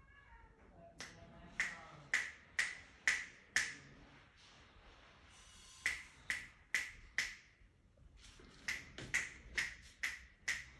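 Sharp finger snaps, about two a second, in three runs of four to six snaps each.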